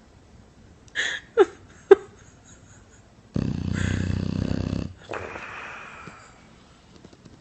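Bulldog snoring: two or three short snorts, then one long, loud buzzing snore of about a second and a half, followed by a softer, breathy breath.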